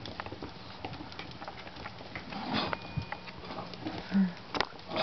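Shichon puppy sniffing and snuffling right at the microphone, with small clicks and patters of paws and mouth, and a short low sound about four seconds in.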